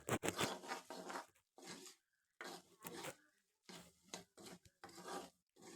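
A cooking spatula scraping and stirring potatoes, onions and spices around a pan, in a series of short, irregular strokes about two a second.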